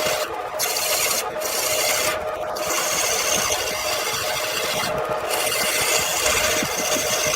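Wood lathe running with a turning tool or abrasive scraping against the spinning wooden workpiece: a steady rasping hiss over a constant hum. The rasping breaks off briefly about four times.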